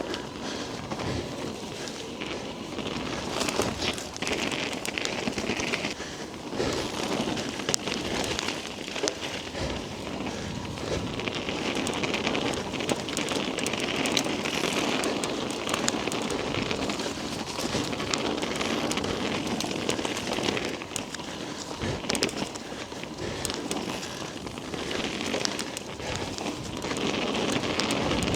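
Whyte E-160 electric mountain bike ridden along a wet, muddy trail: continuous crackle and spatter of the tyres through mud and grit, with frequent small knocks and rattles from the bike. The rider is breathing hard.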